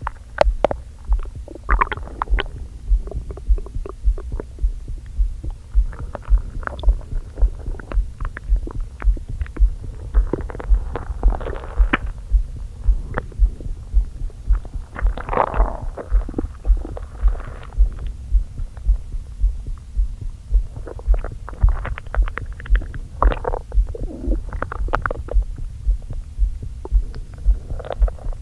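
Stomach and gut gurgling and rumbling heard through a microphone pressed against the belly. Irregular squelchy gurgles come and go over a steady low thumping pulse of the heartbeat, about two beats a second. The gurgles are from an upset stomach, which the owner puts down to eating a lot too quickly after going without food.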